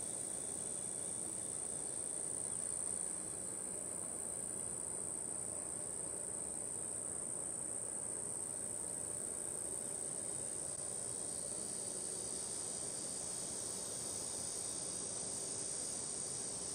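A chorus of insects, crickets or similar, giving a steady, unbroken high-pitched buzz.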